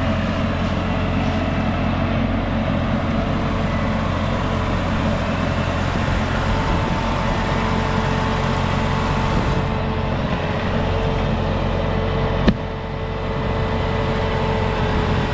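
New Holland tractor's diesel engine running steadily, a constant low hum with a steady whine over it. One short click about twelve and a half seconds in.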